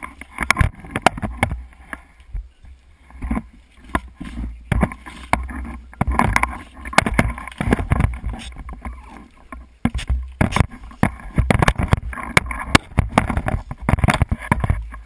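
Irregular knocks, clatter and rustling of scuba gear being handled close to a head-mounted camera's housing, over a steady low rumble.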